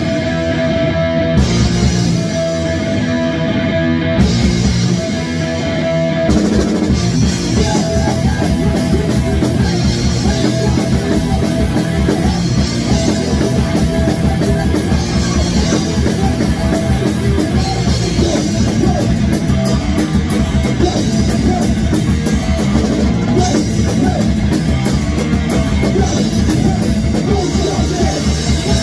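A metal band playing live in a rehearsal room, with distorted electric guitar and a drum kit. For the first six seconds the guitar holds chords, with a few cymbal crashes. The full band then comes in with a fast, driving beat, with no vocals yet.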